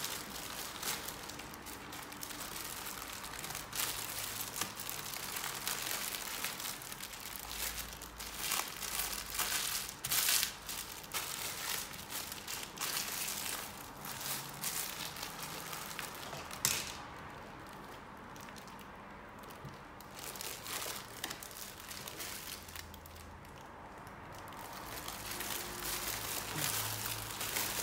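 Clear plastic bags of diamond-painting drills crinkling and rustling as they are handled and packed together with the inventory sheet. The crinkling goes on for most of the time and mostly stops in the last third, apart from a few brief rustles.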